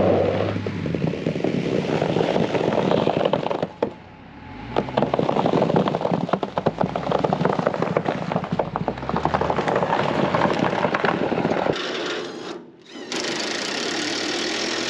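A Jeep Gladiator Rubicon pickup running at low speed across packed snow, its engine steady under a dense crackling crunch of tyres on snow, with a short lull about four seconds in. Near the end the sound cuts to a different steady noise.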